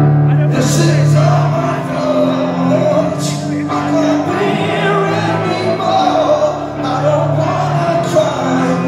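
Live rock band playing: electric guitars, bass and drums holding low chords, with a man singing over them and a few cymbal crashes.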